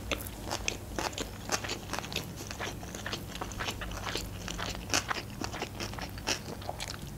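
Close-miked chewing of a mouthful of sushi roll: irregular wet clicks and crackles of the mouth and food as it is chewed with the mouth closed.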